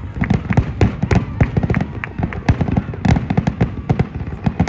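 Fireworks display: aerial shells bursting in a dense, irregular barrage of bangs and crackles, several a second.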